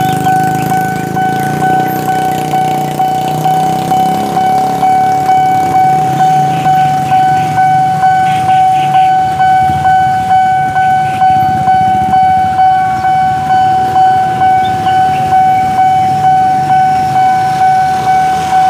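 Railway level-crossing warning alarm ringing one high tone in steady, even pulses, about one and a half a second, the signal that a train is approaching and the gates are closing. Motorcycle engines idle and pass underneath it.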